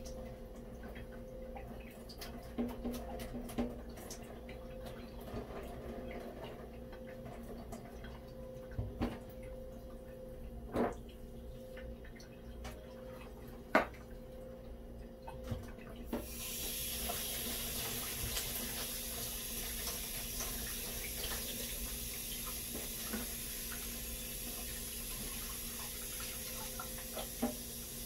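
Small clicks and knocks of fishing-reel parts being handled over a steady hum, then, about halfway through, a tap starts running into a sink and keeps running steadily.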